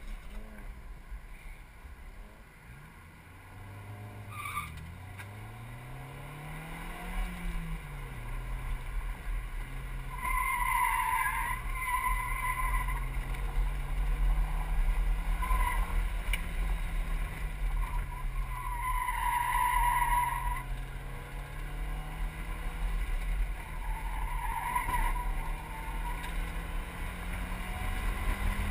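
Mazda MX-5 Miata's four-cylinder engine pulling hard through an autocross run, its pitch climbing and dropping with each gear and throttle change. The tyres squeal in short bursts through the corners, four or five times from about ten seconds in, heard from the open-top cockpit.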